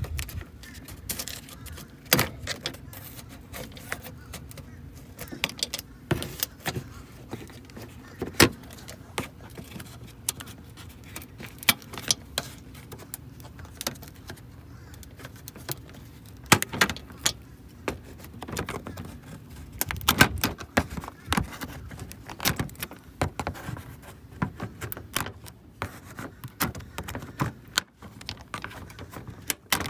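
Plastic trim tool prying push-pin retainer clips out of a plastic radiator support cover: irregular sharp plastic clicks and snaps, some quick runs of several and some single ones.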